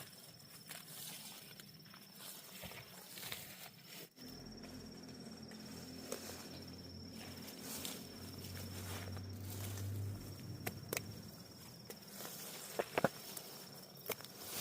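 Scattered rustling and crackling with a few sharp clicks, over a steady high insect trill that breaks off briefly in the middle; a low hum runs for a few seconds in the middle.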